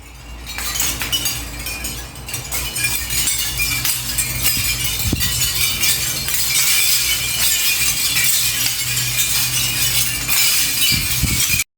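Seashell curtain: strings of small shells clinking against each other in a dense, steady stream of light clicks that builds up after about a second and stops abruptly near the end.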